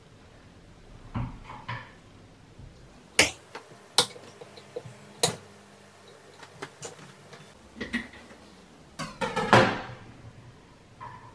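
Knife chopping Snickers bars on a cutting board: irregular sharp knocks, three of them loud in the middle, with a longer clatter near the end.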